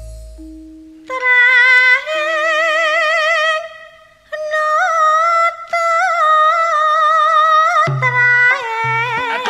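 Background music: a high voice sings long held notes with wide vibrato over a fading low drone, and low bass notes come in near the end.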